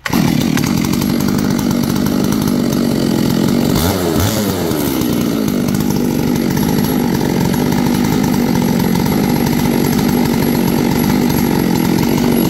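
Big-bore, high-compression Proline 660 two-stroke chainsaw firing up suddenly and running hard, with a brief drop in pitch about four seconds in.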